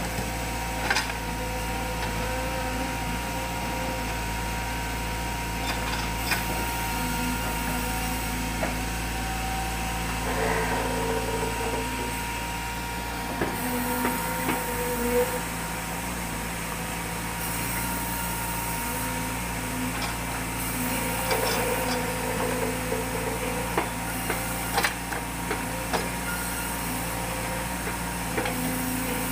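Engine-driven sawmill machinery running steadily, with scattered sharp knocks.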